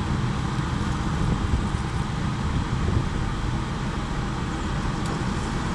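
A vehicle engine idling, a steady low rumble heard from inside the cab.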